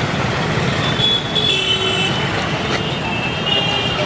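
Steady road traffic noise, with thin high whining tones coming and going from about a second in.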